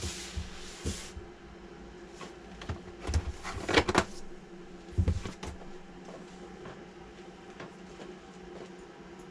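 Packaging being handled: cardboard sliding and rubbing for about a second, then a few knocks and clatters as a boxed model car is lifted out and set down on a bench, over a steady low hum.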